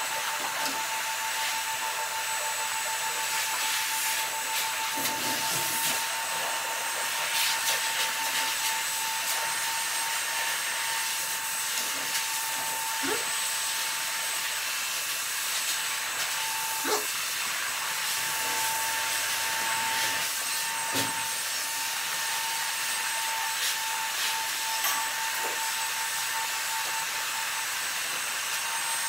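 A small electric motor running steadily with a constant whine and hiss, with a few light clicks over it.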